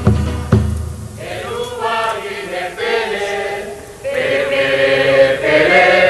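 Tahitian group chanting: many voices in unison. A deep drum beat falls about half a second in, and the low drum rumble stops about a second in.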